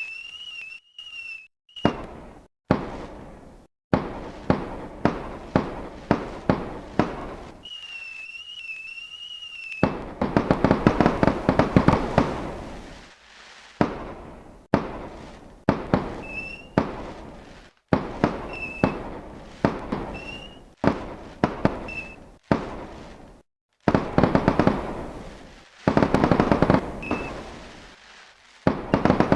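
Fireworks going off: repeated sharp bangs and dense crackling volleys. A high, wavering whistle sounds at times, and the sound cuts off abruptly into silence several times.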